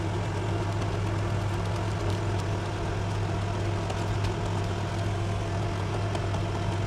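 A steady low hum, with faint snips of scissors cutting through a paper pattern.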